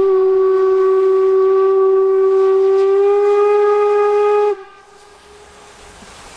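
Steam whistle of DR class 52 locomotive 52 8141-5 sounding one long blast of about four and a half seconds, its pitch stepping up slightly about three seconds in before it cuts off sharply. It is a warning blast as the locomotive approaches a level crossing.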